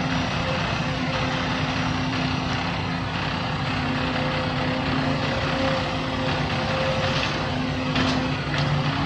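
Heavy diesel machinery engine running steadily, with a steady drone and a couple of faint clicks near the end.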